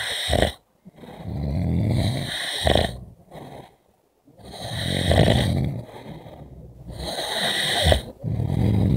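A person snoring in sleep: rasping snores that swell and fade, one every two to three seconds.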